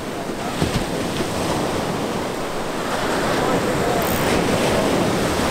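Ocean surf breaking and washing up the sand, with wind buffeting the microphone. The wash builds louder over the first few seconds, then holds steady.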